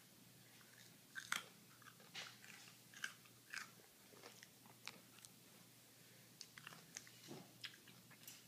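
Toy poodle crunching and chewing a raw carrot: a string of irregular sharp crunches, the loudest about a second in, with smaller chewing crunches after.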